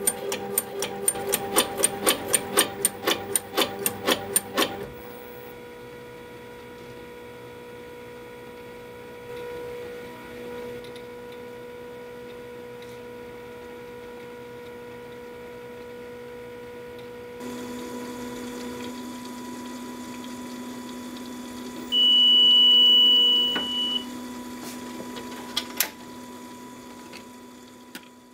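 Perten FN 1000 Falling Number instrument running a test: for about five seconds the viscometer stirrers click up and down about twice a second, then only a steady machine hum remains. About 22 seconds in, a long high beep, the loudest sound, signals the end of the test, followed by a couple of clicks.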